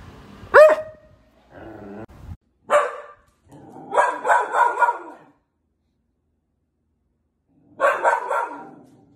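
Border collie barking in separate bursts. There is one high yelp about half a second in, a quieter low sound, and a single bark near three seconds. A quick run of about five barks follows, then, after a few seconds' pause, another quick run of three or four barks near the end.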